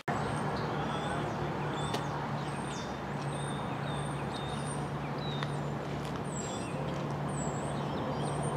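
Many small birds chirping and whistling in short, rising and falling calls, over a steady low hum of road traffic.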